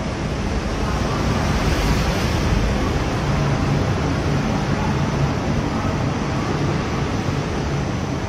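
Escalator running as it carries the rider up: a steady rumble and hiss with a faint low hum.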